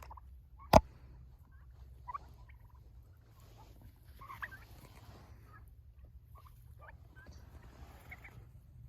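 Royal Palm turkeys giving scattered short, soft calls, with one sharp tap close to the microphone about a second in.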